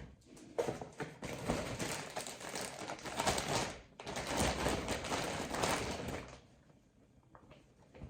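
Packaging crinkling and rustling as items are handled, stopping about six seconds in, followed by a few faint clicks.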